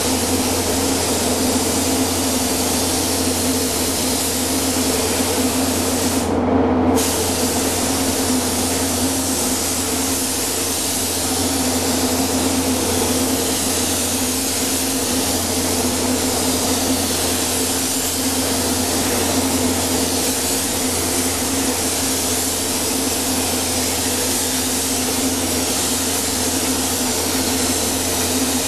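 Gravity-feed paint spray gun hissing steadily as it sprays, over a steady low hum. The hiss cuts out briefly about six seconds in, then resumes.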